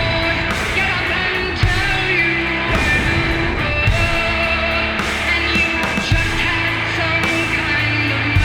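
Rock music with guitar and singing, playing steadily.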